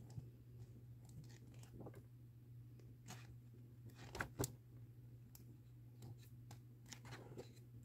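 Pages of a thick paperback coloring book being turned by hand: faint paper flicks and rustles, with two louder ones about four seconds in.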